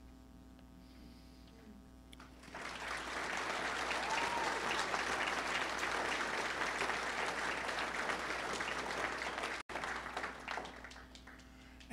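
Audience applauding, starting about two and a half seconds in and dying away near the end.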